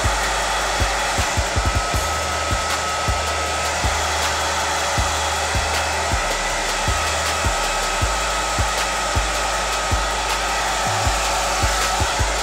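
Handheld hair dryer blowing steadily without a break, with background music carrying a low bass line and beat underneath.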